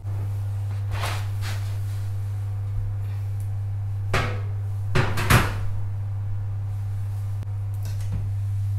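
Metal knocks and scrapes of a loaf tin and oven shelf as the tin is set into an open oven, with the oven door being handled, over a steady low hum. The loudest clatters come about four to five and a half seconds in.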